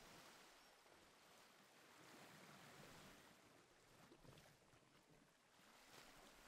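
Near silence: a faint, soft rushing background noise that slowly swells and fades.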